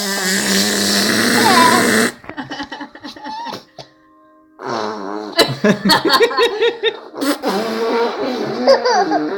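A loud fake fart noise, a buzzing blow lasting about two seconds, made by a person. After a short pause, laughter in quick repeated bursts fills the second half.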